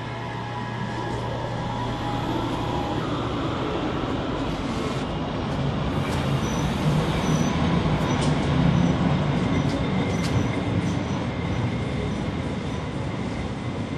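Passenger train moving along a station platform: a steady rumble of wheels and carriages with occasional clicks over the rails, growing louder towards the middle.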